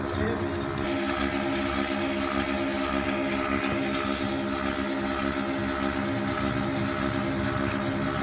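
Portable milking machine running: a steady motor hum from its vacuum pump with a regular pulse about twice a second, as milk is drawn through the hose into the steel bucket. A hiss joins about a second in.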